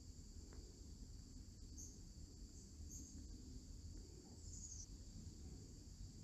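Faint, steady high-pitched chorus of insects over a low rumble, with a few short chirps about two, three and four and a half seconds in.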